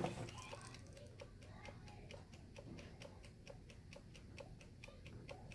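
A sharp knock on the table at the very start, then faint, steady, even ticking, about four to five ticks a second.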